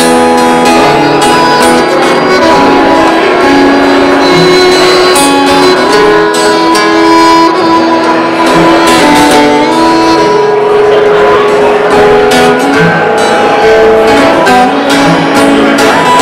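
Fiddle and acoustic guitar playing an instrumental break of a song, the fiddle carrying the tune in long held notes over the guitar accompaniment.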